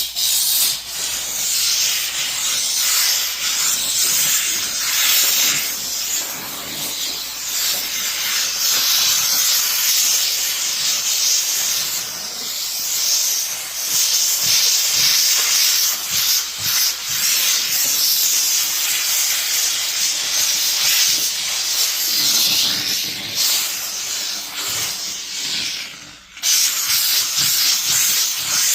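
Upholstery steamer hissing steadily as it jets steam onto the soiled fabric of a recliner's arms to draw out hair and body oil. The hiss stops briefly near the end, then starts again.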